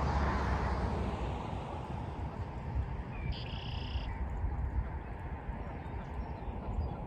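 Wind rumbling on the microphone, with one short bird call a little over three seconds in.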